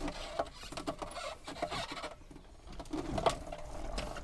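Irregular knocks and clatter of a dirt bike being rolled out of a van and down a metal loading ramp, with one louder knock about three seconds in.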